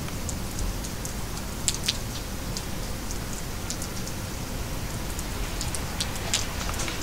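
Steady rain, with a few scattered sharp ticks on top.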